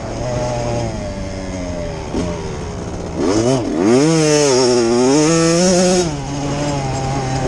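Off-road motorcycle engines revving, their pitch rising and falling as the bikes accelerate and back off. About three seconds in, one engine drops sharply and then climbs in a hard rev, and it stays louder for a few seconds.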